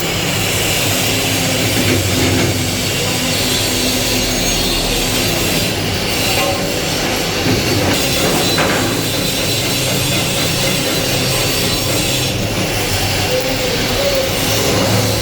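Stick welding with an E6013 electrode: the arc sizzles steadily while a filler pass is laid, over a faint hum from the welding machine.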